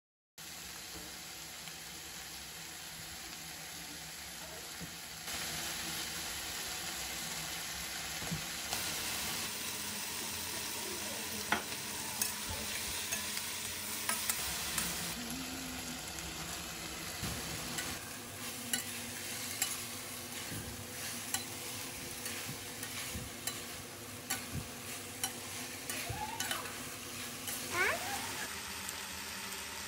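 Onions and bell peppers sizzling in a stainless-steel kadai while a metal spatula stirs them, with frequent clicks and scrapes of the spatula on the pan. The sizzle gets louder about five seconds in.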